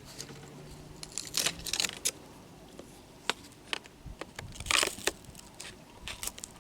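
Scattered short crunches, rustles and clicks at irregular intervals, with a longer crunch a little before the end.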